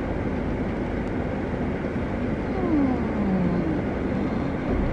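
Steady hum and hiss inside a car's cabin, with a couple of short falling tones a little past halfway.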